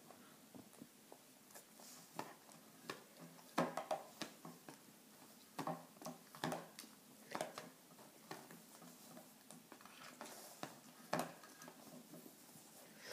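A small dog pawing and mouthing at a wooden tray and a plastic lip balm sphere, making faint, irregular clicks and knocks, the loudest about three and a half seconds in and again near eleven seconds.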